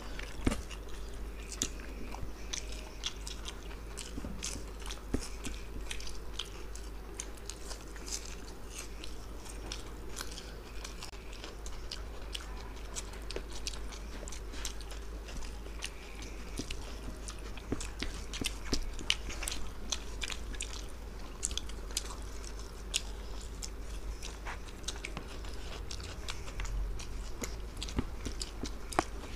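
Two people chewing mouthfuls of mutton biryani eaten by hand, with many small wet clicks from their mouths and fingers over a low steady hum.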